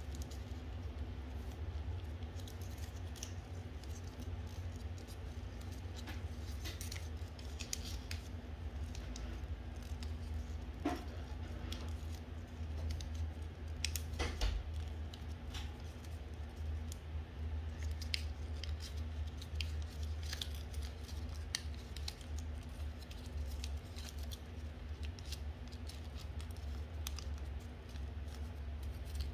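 Coloured origami paper being folded and creased by hand: scattered small crinkles and rustles, with a couple of sharper crackles around the middle, over a steady low hum.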